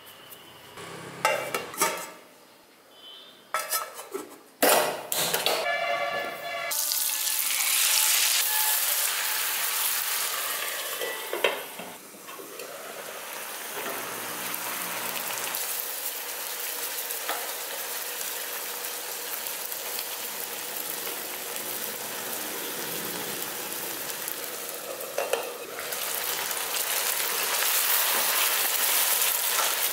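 Marinated chicken legs sizzling steadily in hot fat in a non-stick kadai, the hiss starting about seven seconds in and swelling again near the end as a spatula turns the pieces. Before that, a few brief clicks and knocks.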